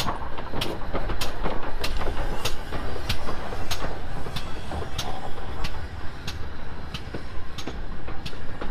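A train running on the line: a steady low rumble with sharp, evenly spaced clicks about every 0.6 s.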